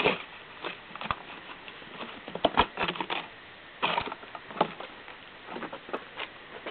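Six-week-old golden retriever puppy moving about and scuffling: irregular taps, scrapes and knocks, coming thickest and loudest about two and a half to three seconds in.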